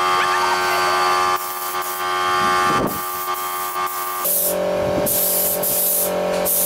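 Siphon-feed spray gun hissing in short, repeated bursts as the trigger is pulled and released while paint is sprayed onto a car's front fender. Underneath is a steady droning hum that shifts in pitch about four seconds in.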